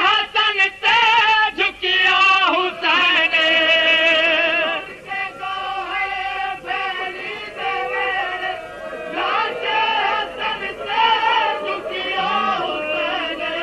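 A voice singing a Punjabi devotional lament (kalam), drawing out long wavering notes with vibrato in a wordless, melismatic passage between verses.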